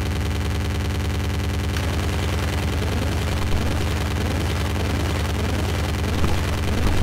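Benjolin and Fourses analog synthesizers patched together, putting out a dense, gritty electronic noise: a rapid crackle over a steady low buzz. The texture shifts about two seconds in as the knobs are turned.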